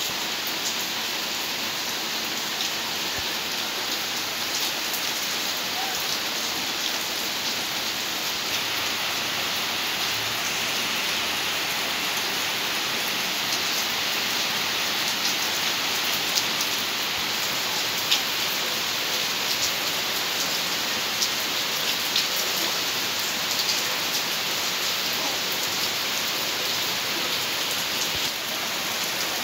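Steady rain falling, with scattered drops ticking on hard surfaces.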